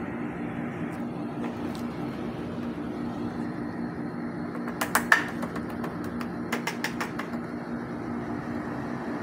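Kolin window-type air conditioner running: a steady low hum with a rush of fan air. About five seconds in come a few sharp clicks, then a quick run of clicks a second and a half later.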